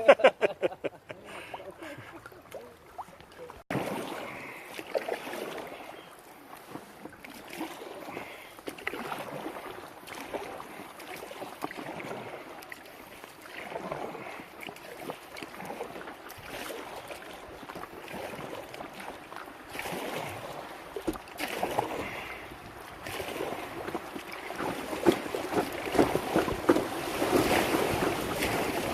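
River water splashing and rushing around a kayak on a fast-flowing river, with wind on the microphone, growing louder near the end.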